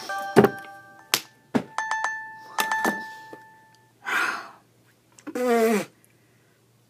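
Several sharp knocks on a wooden desk, each setting small steel nuts and bolts ringing with short clear tones. Then a loud breath and a groan that falls in pitch, shortly before the end.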